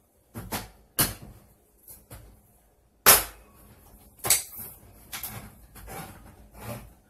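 Handheld crank can opener clamped onto a steel can of stewed tomatoes on a stainless steel counter: sharp metal clacks and knocks, the loudest about three seconds in, then a run of softer clicking as the knob is turned around the lid.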